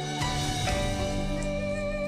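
Instrumental background music with steady held notes.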